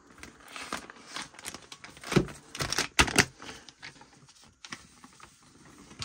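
Plastic wrapping crinkling and tearing as it is cut away from a new aluminium RC chassis plate with scissors, with a few sharp clicks and taps about two and three seconds in.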